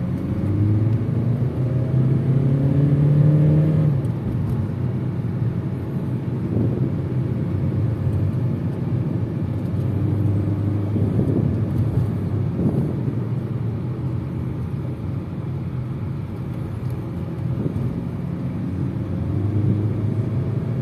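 Volkswagen Touran 1.6 DSG heard from inside the cabin while driving: the engine hum rises in pitch as the car accelerates, drops suddenly about four seconds in at a gear change, then climbs again later, over steady road and tyre noise.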